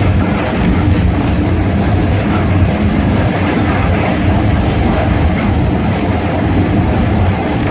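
A passenger train running along the track, heard from on board: a steady, loud rumble of the coach and its wheels on the rails.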